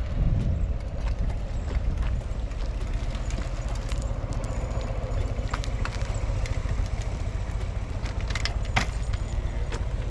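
Wind rumbling steadily on the microphone of a camera moving alongside a bicycle, with bicycle tyres rolling on asphalt and scattered small clicks and rattles from the bikes.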